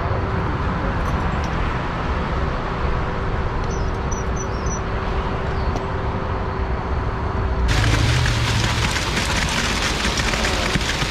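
Heavy equipment running steadily, a diesel engine's constant noise with a faint steady hum. About eight seconds in the sound switches suddenly to a brighter, hissing noise.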